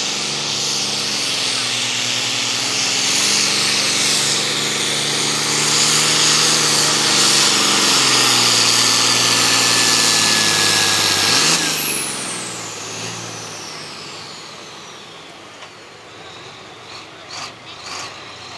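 Turbocharged diesel engine of a John Deere super farm pulling tractor running at full throttle under heavy load as it drags a weight-transfer sled, with a high turbo whine over the engine. About twelve seconds in the throttle is cut: the engine drops off and the turbo whine falls away over several seconds.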